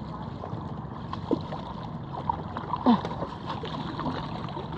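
Water lapping and gurgling against the hull of a small outrigger boat moving over calm water, with a short louder gurgle about three seconds in.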